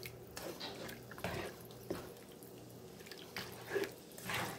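Slotted spatula stirring chicken pieces through watery broth in a skillet: quiet, irregular sloshing and dripping of liquid, a little louder near the end.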